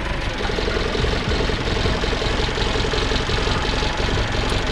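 Loader engine idling steadily with a fast, even clatter.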